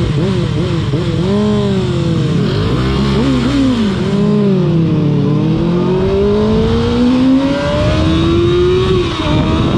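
Sport motorcycle engine under way, its pitch rising and falling with the throttle, then climbing steadily for several seconds as it accelerates before dropping sharply near the end, as at a gear change.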